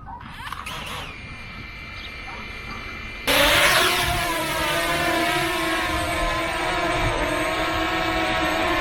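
DJI Mavic Mini quadcopter drone starting up: a thin steady whine, then about three seconds in the propellers spin up suddenly into a loud, steady, many-toned buzzing hum.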